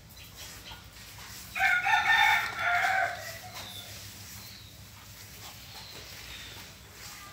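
A rooster crows once, a single call about a second and a half long that starts a little way in.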